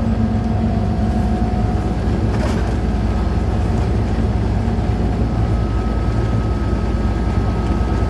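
Diesel locomotive running along the track, heard from inside its cab: a loud, steady low engine drone with a faint high steady tone above it. A brief click about two and a half seconds in.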